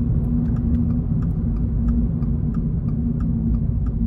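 Toyota GR86's 2.4-litre flat-four engine and road noise heard from inside the cabin while cruising: a steady low rumble with a constant hum. Light ticks sound about three times a second over it.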